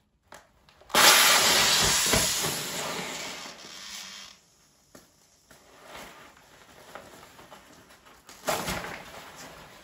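Inflatable lifejacket's CO2 gas cylinder firing: a sudden loud hiss about a second in that fades away over about three seconds as the bladder fills, test-firing an old lifejacket to see if it still works. Quieter fabric rustling follows as the inflated jacket is handled.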